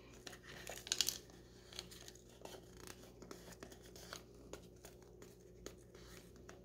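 Faint paper rustling and small plastic clicks from hands pressing a glued paper picture onto a small clear plastic box and handling it, with a short crackly cluster about a second in.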